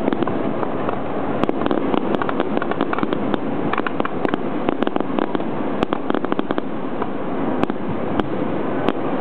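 Aerial firework shells bursting, with dense, rapid crackling and popping of many small reports over a steady rush of noise.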